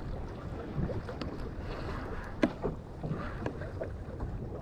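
Steady low rumble of wind and water around a small boat at sea, with a few faint clicks and one sharper click about two and a half seconds in.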